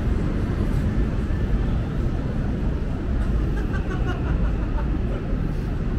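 Steady low rumble of city background noise, with no clear rise, fall or rhythm.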